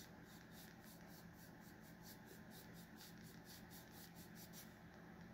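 Faint, quick swishes of a chip brush's bristles stroking lightly across a wooden board, about four strokes a second, dry-brushing paint on to weather the wood. The strokes stop near the end.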